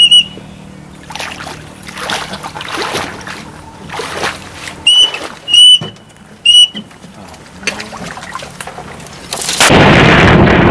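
Four short, high-pitched whistled peeps, one at the start and three more about five to seven seconds in, from a duck whistle call. Between them there is soft splashing and rustling, and a loud rushing noise lasting under two seconds comes near the end.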